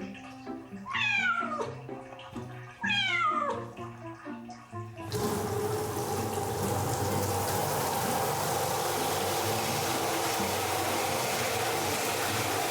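A tuxedo kitten gives two long meows, each falling in pitch, about a second apart. About five seconds in, running water starts and goes on steadily.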